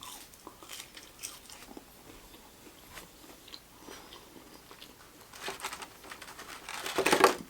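A person chewing and biting food close to the microphone: soft, scattered wet mouth clicks and smacks, with louder bursts about five and a half seconds in and just before the end.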